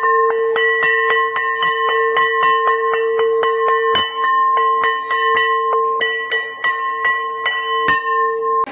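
Traditional hanging metal school bell plate struck rapidly with a wooden mallet, about three strikes a second, ringing continuously with a steady tone.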